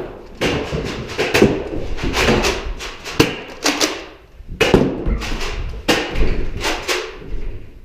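A quick, irregular series of loud thumps and clatters, about two a second, each with a short ring after it, as a Nerf Rival game restarts in a small office.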